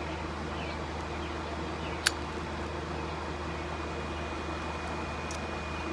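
A steady low mechanical hum with one sharp click about two seconds in.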